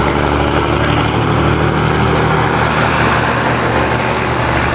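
Road traffic noise: a steady rush of car engines and tyres.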